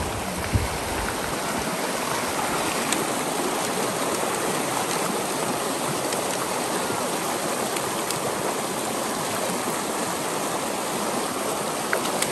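Shallow, rocky stream running fast over stones, a steady rush and splash of water.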